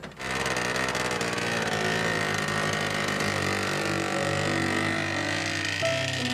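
Engine of a small three-wheeled mini truck running steadily as it pulls away down the road. Music notes come in faintly over the last couple of seconds.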